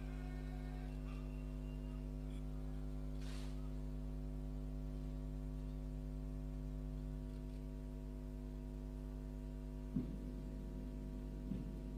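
Steady electrical mains hum, low and unchanging, with two faint thuds near the end.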